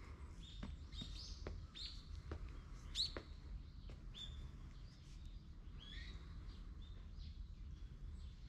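Small birds chirping in short, repeated calls, with one sharper call about three seconds in. Under the calls, footsteps on stone steps and paving come about once every 0.8 s and stop about halfway through.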